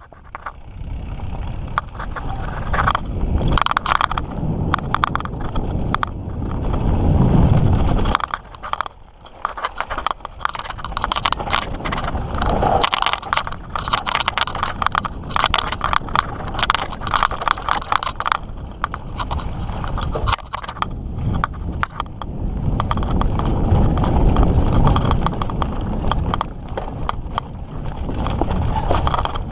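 Mountain bike being ridden over a dirt trail: tyres rolling on dirt with frequent quick clatters and rattles from the bike over bumps, and a low rumble that swells twice as the speed picks up.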